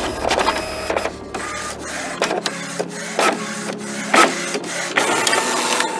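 Computer printer printing out a page: a rapid run of irregular mechanical clicks, with a few louder strokes, that stops abruptly at the end.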